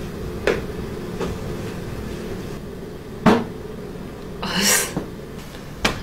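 Several sharp knocks and creaks of a person shifting and stretching in a desk chair, the loudest about three seconds in, with a short breathy rush a little past four seconds.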